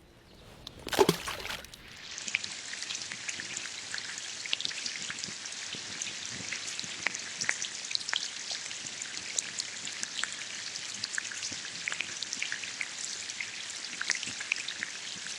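Steady rain pattering, a dense hiss full of small drop ticks, after a brief louder rustle about a second in.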